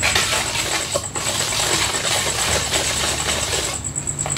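A metal spoon stirring and scraping quickly around a stainless steel mixing bowl through a thin dressing of chili, fish sauce, sugar and lime juice, working the sugar until it dissolves. The stirring pauses briefly about a second in and again near the end.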